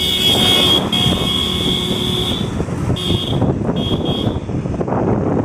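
A vehicle horn sounding: one long blast of about two seconds, then two short beeps a little after three and four seconds in, over the steady engine and road noise of a vehicle driving along.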